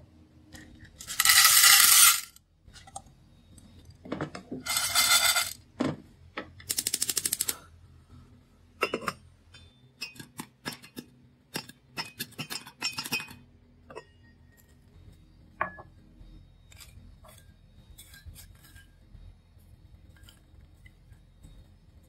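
Popcorn being made in a stainless steel pot with a lid: three loud rattling bursts in the first eight seconds, then sharp pops of kernels bursting against the pot and lid, quick and dense at first and thinning out toward the end.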